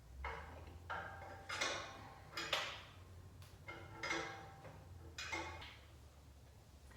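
Wrench or socket clinking against the exhaust hardware: about six sharp, ringing metal clinks over a faint low hum, as a stuck exhaust bolt is worked at.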